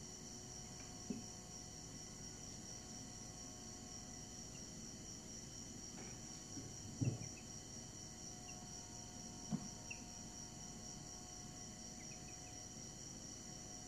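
A faint steady high-pitched drone like an insect chorus, with three soft low thumps: about a second in, at about seven seconds, and near ten seconds.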